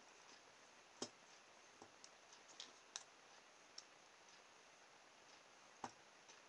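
Near-quiet workbench with a handful of faint, sharp clicks and ticks. They come from the points of a pair of steel dividers tapping and scribing on a small piece of drinks-can aluminium. The strongest clicks fall about a second in and near the end.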